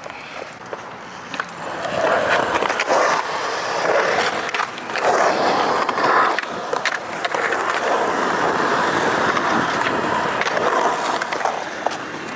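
Skateboard wheels rolling on concrete. The rumble grows louder about two seconds in, then swells and eases as the board carves, with a few sharp clacks.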